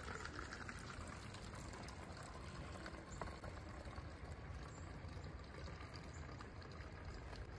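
Faint, steady trickle of water squeezed from a soft pouch through a Sawyer squeeze filter into a plastic water bottle, with a single small click about three seconds in.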